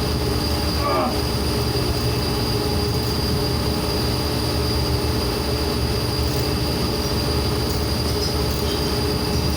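Loud, steady drone of running plant machinery, a low rumble with several constant high-pitched whining tones over it.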